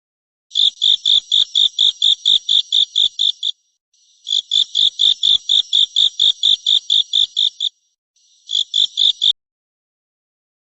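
An animal call: three runs of rapid, high chirps at about five a second, the first two about three seconds long each and the last a short one.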